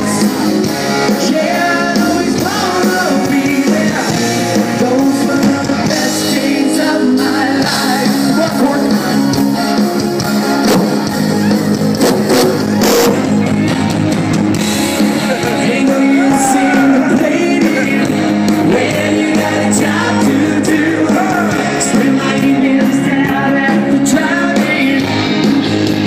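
Live rock band playing loud and steady: electric guitars, drums and a lead singer.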